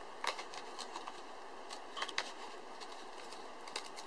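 Small scissors snipping through folded paper in short, irregular cuts, with light rustling of the paper between snips.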